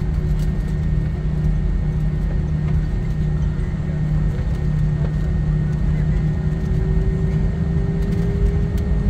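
Airliner cabin noise: a steady low rumble of the jet engines and airflow, with steady engine tones, one of them rising slightly in pitch near the end.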